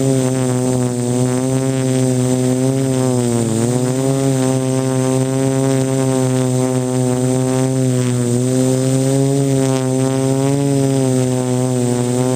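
Quadcopter's electric motors and propellers humming as a steady buzz, the pitch wavering up and down with throttle and dipping briefly about three and a half seconds in.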